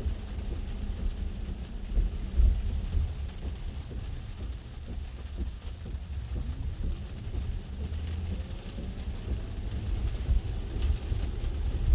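Road and rain noise inside the cabin of a Tesla Model 3 driving on wet pavement: a steady low rumble with a couple of louder knocks about two seconds in. A faint whine rises in pitch from about six seconds in.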